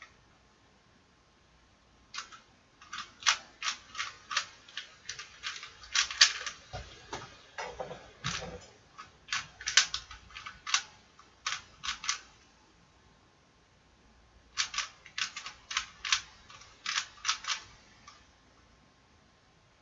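Plastic puzzle cube (a 3x3 Rubik's-type cube) being turned by hand during a solve: its layers clack in quick runs of clicks, with a pause of about two seconds in the middle and quiet near the start and end.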